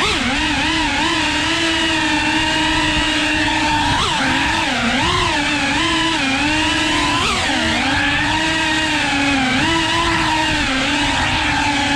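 FPV quadcopter's motors and propellers whining steadily, the pitch wobbling and dipping briefly up and down as the throttle changes through quick manoeuvres.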